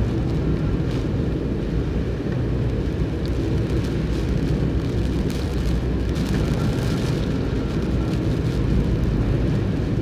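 Steady noise inside a moving car's cabin: tyres on a rain-soaked road and strong typhoon wind against the car, a low, even rumble.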